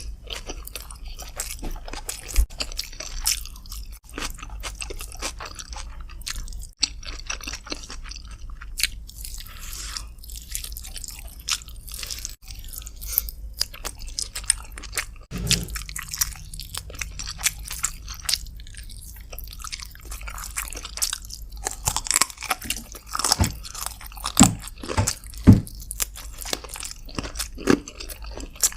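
Close-miked eating sounds: a person chewing and biting chicken with rice, with wet mouth smacks and crunchy clicks, busier and louder near the end.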